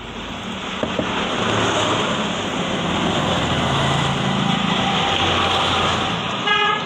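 A motor vehicle's engine runs close by for several seconds, with its pitch wavering, and gives a short horn toot near the end.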